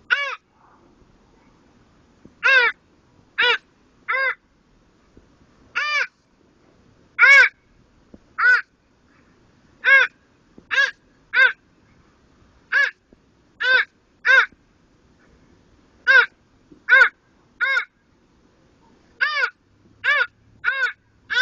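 Short, harsh caw-like calls, about twenty in all, coming singly or in quick runs of two or three with pauses between.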